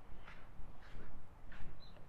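Footsteps crunching on beach sand at a steady walking pace, over a constant low rumble of surf and wind. A brief high chirp near the end.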